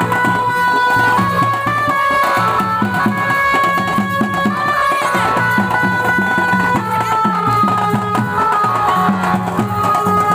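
Indian folk-style music with a steady drum beat under a melody of long held notes.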